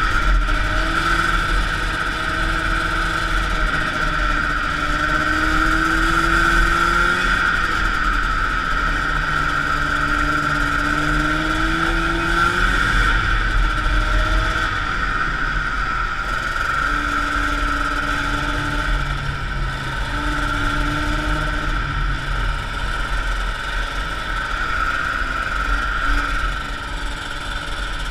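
A 1979 Arctic Cat El Tigre 6000 snowmobile's Suzuki 440cc liquid-cooled two-stroke engine running under way. Its engine speed climbs and falls back several times as the throttle is worked, over a steady high whine.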